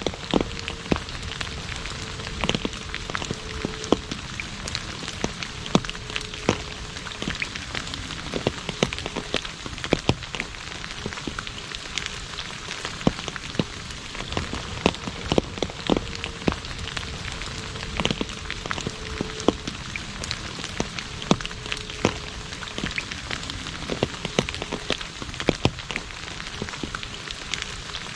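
Rain falling on an asphalt road: a steady hiss of rainfall with many sharp, close drop hits scattered through it.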